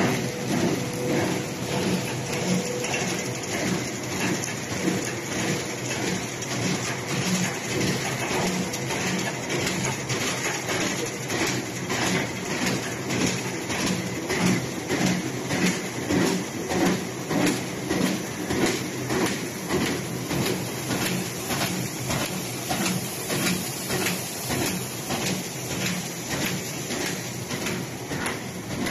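Kraft paper bubble mailer making machine running: a steady mechanical clatter and whir of rollers and paper feed, with a fast, even repeating beat from its working cycle.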